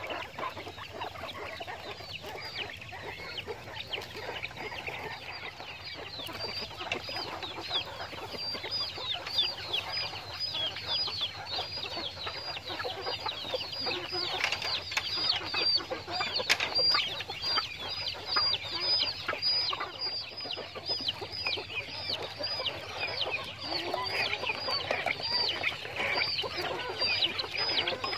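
A flock of caged Japanese quail calling: a dense stream of short, high chirps that drop in pitch, several a second, growing busier and louder after the first several seconds.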